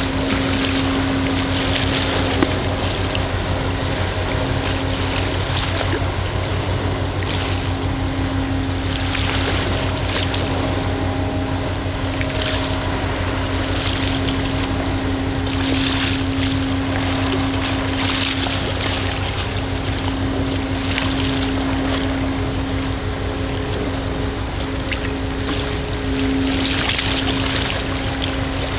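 A boat engine drones at a constant pitch, with wind buffeting the microphone and water washing along the hull.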